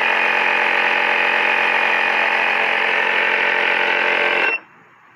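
Portable air compressor running steadily with a buzzing whine, pumping air through a hose into a plastic water bottle to pressurise it; it cuts off suddenly near the end.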